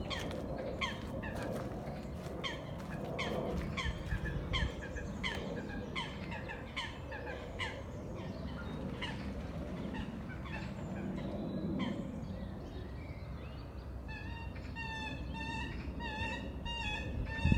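Unidentified bird calling: a long series of short calls that sweep downward in pitch, roughly two a second. About three-quarters of the way through, a quick warbling trill follows.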